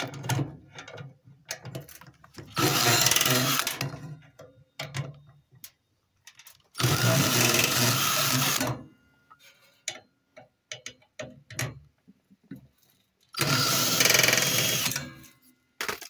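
Power drill with a Phillips bit backing out the screws that hold a microwave magnetron, in three runs of about two seconds each, with small clicks of handling between them.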